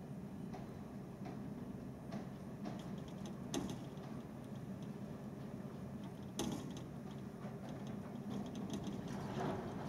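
Strong gusting wind buffeting the house, a steady low rumble, with the sliding window rattling and clicking in its frame and two sharper knocks about three and a half and six and a half seconds in.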